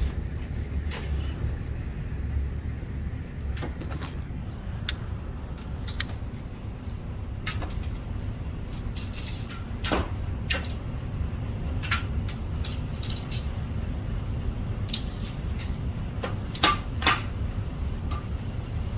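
A steady low rumble with scattered faint sharp knocks and clicks, then one loud gunshot right at the very end.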